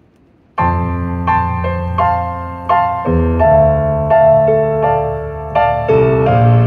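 Bose CD-3000 music system playing a CD from its 5-disc changer: slow piano music starts suddenly about half a second in, single notes struck roughly every half second to second over held low notes.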